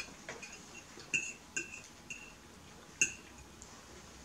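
Metal fork clinking and tapping against a square white ceramic plate while picking up food: several short, ringing clinks, the loudest about three seconds in.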